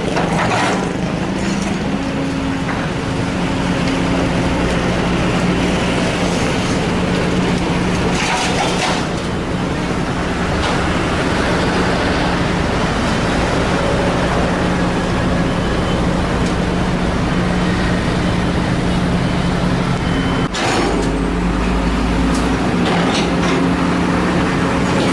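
Heavy diesel machinery, an excavator and a dump truck, running with a steady engine drone during soil loading. There are noisy scraping stretches, and a sharp knock about twenty seconds in is followed by a short low rumble.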